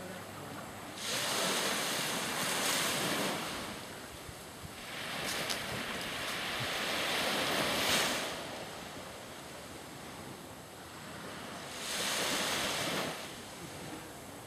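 Sea waves washing in three surges over a steady hiss of wind and water, each surge lasting one to three seconds.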